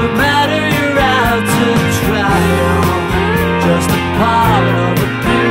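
Rock song with a singing voice over guitar, bass and a steady drum beat.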